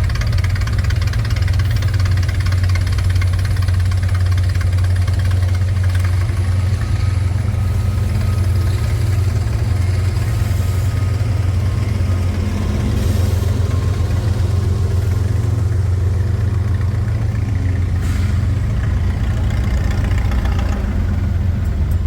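Massey-Ferguson 30 industrial tractor engine idling steadily with a low, even hum.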